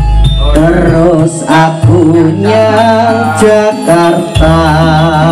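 A song played loud through a PA speaker setup of 15-inch full-range cabinets over single 18-inch subwoofers: heavy deep bass with a wavering sung vocal line that comes in about half a second in.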